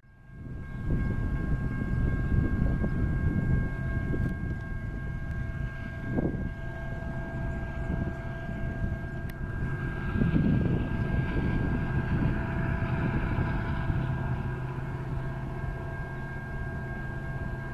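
Low rumble of a distant diesel freight train with several locomotives approaching, under a few steady high tones.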